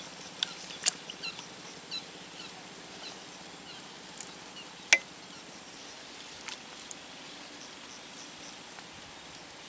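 Outdoor natural ambience: small scattered bird chirps over a steady high-pitched hiss, with a few sharp clicks, the loudest about five seconds in.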